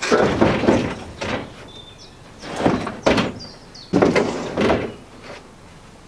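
Unbolted aluminium hard-top roof of a Land Rover Series 3 being shoved and lifted on the body: several rough bursts of metal scraping and knocking, each under a second long. The loudest come near the start and about four seconds in.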